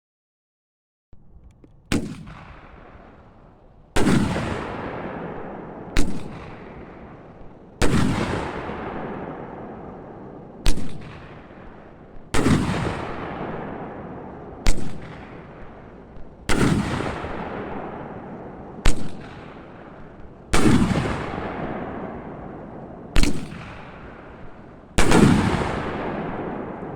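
Raccoon 'Willow King' 500 g seven-shot firework cake with 1.5-inch tubes firing its shots one after another, about every four seconds. Each shot is a sharp launch thump, then about two seconds later a louder boom as the willow shell breaks, followed by a long fading tail.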